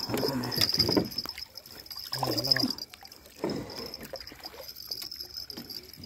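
A landing net being handled and hauled over the side of a wooden boat, with water splashes and scattered knocks against the planks. A steady high insect trill runs underneath.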